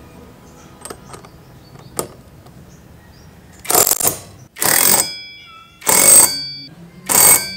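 Cordless impact wrench hammering the CVT pulley nuts tight on a Yamaha NMAX 155 scooter, in four short bursts of about half a second each. A thin metallic ring follows the later bursts.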